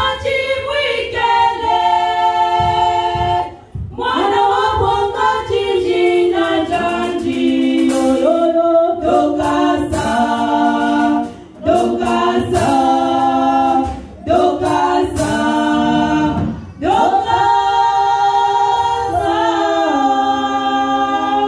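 A group of women singing together a cappella into microphones, in long held notes that step in pitch, phrase by phrase with short breaks between phrases.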